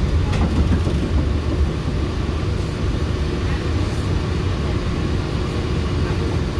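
Walt Disney World monorail train running along its concrete beam, heard from inside the car: a steady low rumble from the drive and the rubber tyres on the beam, with a faint steady hum above it.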